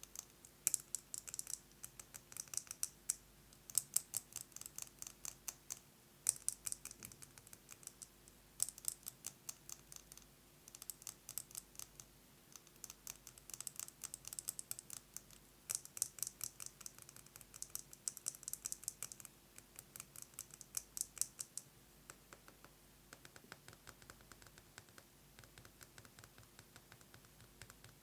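Fast fingernail tapping on a metal lipstick case, in quick runs of a second or so with short breaks. About three quarters of the way through, the taps turn softer.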